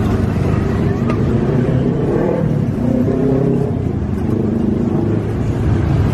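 A steady low rumble with indistinct voices mixed in.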